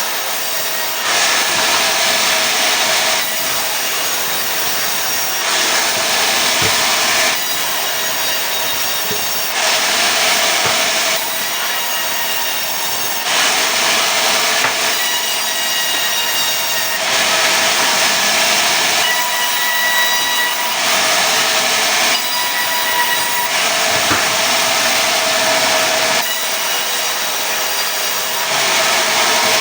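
Sawmill saw cutting pine into boards: a steady machine whine under a hissing cutting noise that swells and eases every couple of seconds as the cut goes on.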